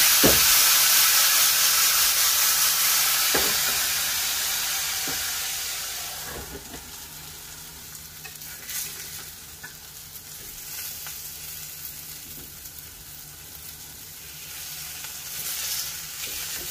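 Okra and potato frying in an iron kadai, sizzling loudly after a splash of water is sprinkled in. The sizzle dies down over the first several seconds to a quieter frying hiss, with a few metal utensil clinks.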